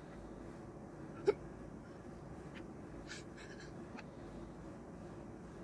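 A man crying quietly, with one short, sharp hiccup-like sob about a second in, over a low steady background hum.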